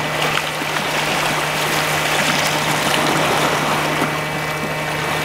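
Sea water washing against a rocky shore: a steady hiss of surf, with a steady low hum underneath.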